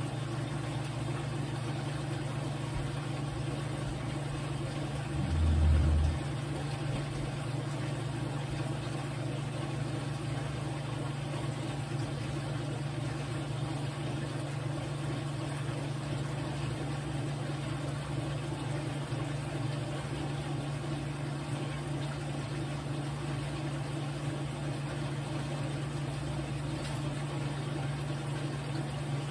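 Top-loading Whirlpool washing machine running through its wash with a steady low hum. About five seconds in there is a brief, louder low thud.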